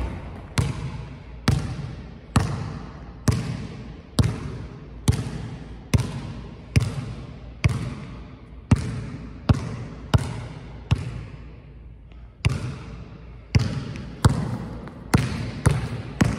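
A basketball is being dribbled on a gym floor, bouncing about once a second, and each bounce rings out in the hall's echo. The bounces pause for over a second about twelve seconds in, then come a little quicker near the end.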